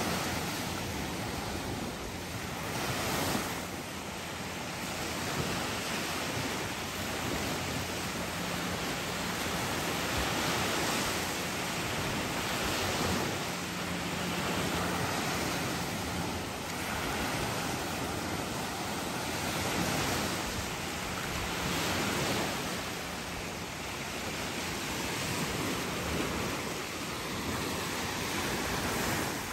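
Small bay waves breaking and washing up on a sandy beach, the surf swelling and easing every few seconds, with some wind on the microphone.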